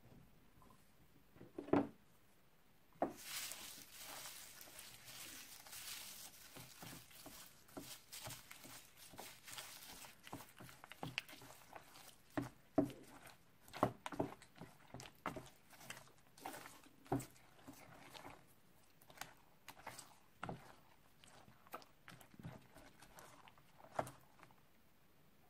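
Slime full of paper squares and sequins being stirred with a plastic spoon: a crinkly rustle of the dry pieces that fades as they are worked in, with many wet squelches and clicks of the spoon against the bowl. A single knock comes about two seconds in.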